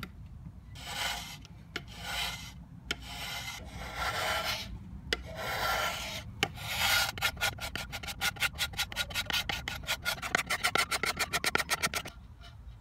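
Sandpaper rubbed by hand over the worn, flaking finish of a wooden table top. It makes about five slow, long strokes, then quick short back-and-forth strokes, about eight a second, that stop abruptly near the end.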